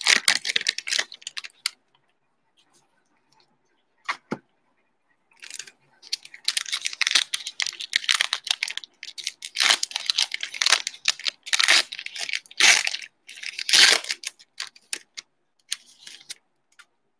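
Plastic cello-pack wrapper of a Panini basketball card pack being torn open and crinkled: sharp rustling and tearing in quick bursts, with a pause broken by a single click a few seconds in, then a long run of crinkling.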